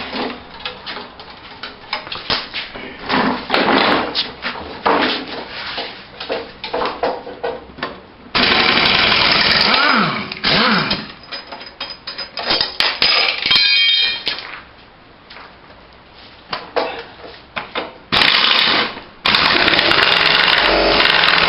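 Cordless impact driver hammering in long bursts, backing out the mower's engine mounting bolts. Between the bursts come clicks, knocks and the clatter of tools and parts being handled.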